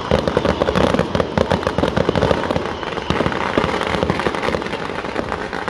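Fireworks going off in a dense, unbroken volley: a rapid stream of crackling bangs from many rockets and firecrackers at once.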